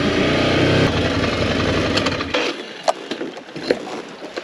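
Ducati Desert X motorcycle's 937 cc twin-cylinder engine running steadily, then its sound stops abruptly about two and a half seconds in. A few light clicks and knocks follow.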